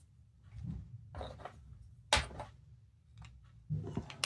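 Black plastic cable chain (drag chain) links being handled and snapped together by hand: plastic rubbing and rattling, a sharp snap about halfway through, and more clicks near the end.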